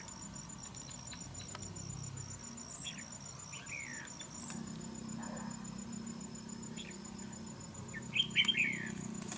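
Red-whiskered bulbuls giving short, sharp, falling chirps a few times, then a louder quick burst of them near the end, as a wild bulbul confronts the caged decoy at the trap.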